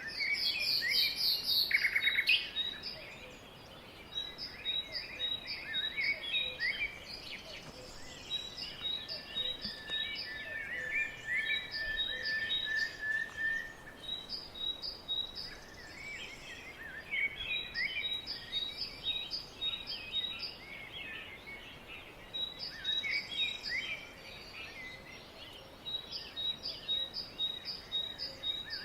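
Several songbirds singing at once in a spring woodland chorus, with repeated series of short high notes. The loudest is a fast trill in the first two seconds, and a long steady whistled note runs through the middle.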